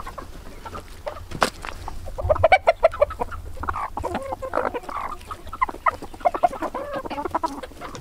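A flock of chickens clucking as they feed on salmon scraps. A single sharp knock comes about one and a half seconds in, and from about two seconds the clucking turns busy and continuous.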